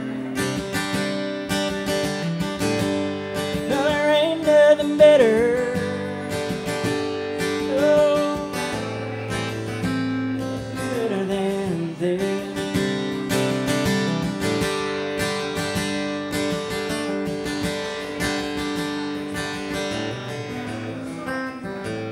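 Steel-string acoustic guitar strummed with a pick, playing a song's outro, with a wordless vocal melody sung over it in places.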